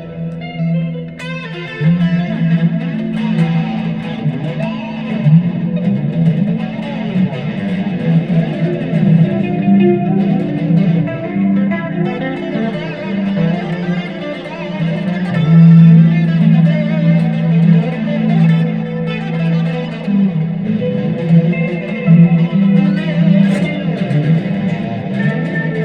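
Dean Avalanche C7 electric guitar with Seymour Duncan Full Shred bridge and '59 neck pickups, played through a Line 6 Spider Jam amplifier: a continuous run of quickly changing notes, with effects on the tone.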